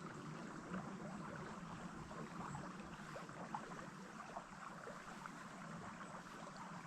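Faint, steady running water of a small creek, with a few light ticks.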